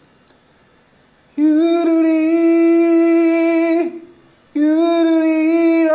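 A man singing two long held notes on the syllables "hyūruri", the first starting about a second and a half in and the second after a short breath, each held steady with a slight vibrato.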